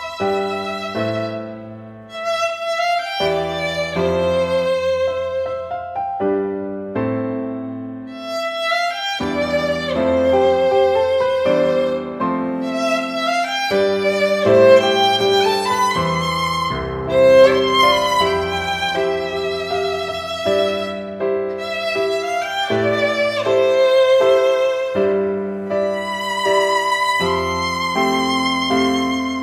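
Background music with a violin playing a melody over a sustained accompaniment.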